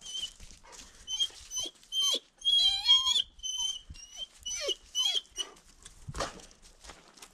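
Hunting dog whining in repeated short, high whimpers, with a longer wavering whine about three seconds in: eager to get going. A single thump comes about six seconds in.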